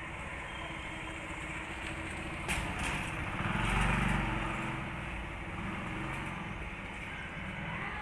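Steady outdoor background rumble that swells and fades about halfway through, with a sharp click shortly before the swell.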